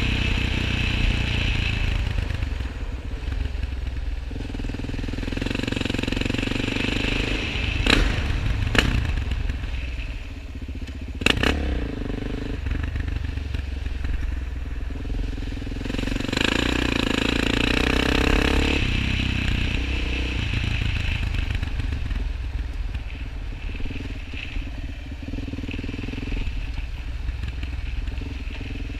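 Suzuki LTZ 400 quad's single-cylinder four-stroke engine running under riding, its note rising and falling with the throttle, heard from the rider's helmet. A few sharp knocks about eight, nine and eleven seconds in.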